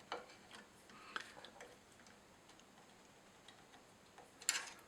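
Faint scattered clicks and taps of small metal tools and parts as the telescope's drive assembly and its mounting bolts are worked on, with a short, louder scrape near the end.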